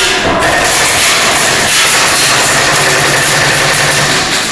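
Airsoft guns firing on full auto, a steady unbroken rattle.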